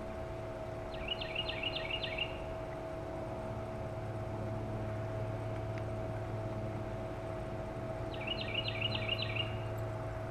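A songbird sings a short phrase of about six quick repeated notes, twice, several seconds apart, over a steady low hum.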